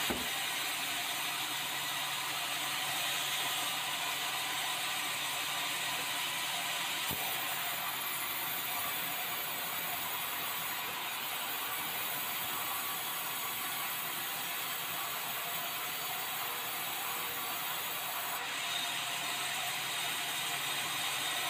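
Sawmill bandsaw running steadily while resawing a block of red meranti timber, an even continuous noise of the blade in the wood. A faint high ring joins it about 7 seconds in, with a single light knock, and drops away about 18 seconds in.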